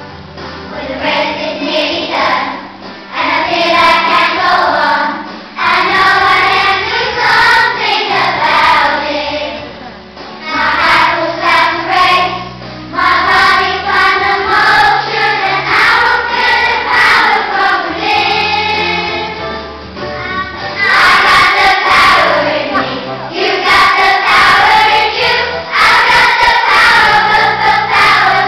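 Children's school choir singing a song together, phrase after phrase with brief dips between phrases.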